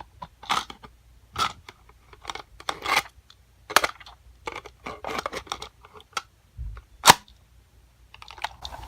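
A series of irregular clicks, knocks and rustles with short gaps between them, the sharpest about four and seven seconds in, and a low thump just before the second.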